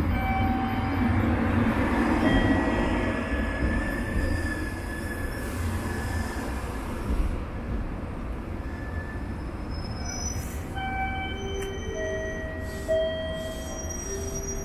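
Limited express train pulling out of a station, with a steady rumble of wheels on the rails and several thin, high wheel squeals that come and go. The rumble is loudest in the first few seconds and eases a little after that.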